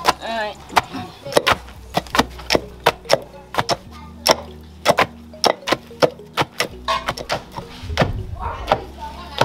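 Wooden pestles pounding in a wooden mortar of palm-nut pulp and in an aluminium pot of pepper and onion mash: sharp, irregular knocks, about three a second.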